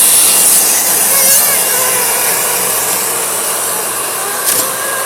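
ESPM 100PA band bag sealer running: a steady mechanical hiss from its motor and air extraction, with a short click about four and a half seconds in.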